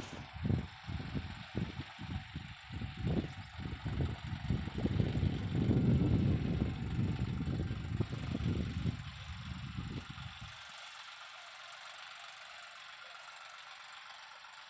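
Tractor's diesel engine running with a low, uneven chugging as it drives a front loader carrying bricks. The engine sound drops away suddenly about ten seconds in, leaving a faint steady hiss.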